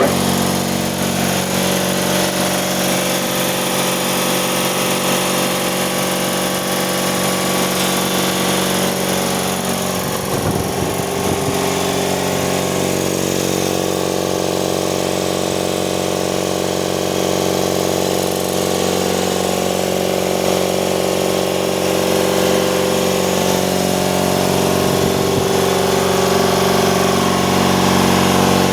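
Fiac air compressor, just after a full overhaul, starting abruptly and running steadily on test, a continuous mechanical hum with several steady tones that grows slightly louder over the last few seconds.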